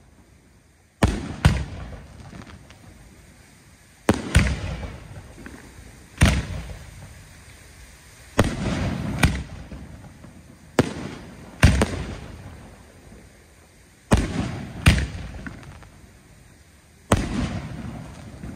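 Aerial firework shells exploding in a display: about a dozen sharp booms, often in close pairs, every two to three seconds, each trailing off in a rumbling echo.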